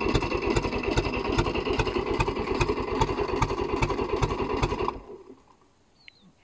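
Boat engine on a hauled-out sterndrive boat running steadily with an even rapid pulse, then shut off about five seconds in. It is being run on land to flush the engine before winter storage, after a cold-weather start that took three tries.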